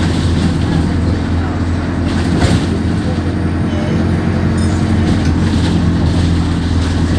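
Alexander Dennis Enviro200 bus's diesel engine running at a steady, unchanging pitch. There is a single knock about two and a half seconds in.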